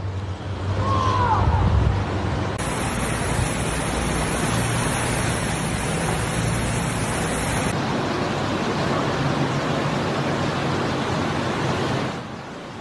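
Steady rushing noise of water from flooded streets, with a car pushing through deep floodwater in the middle. A brief high chirp about a second in.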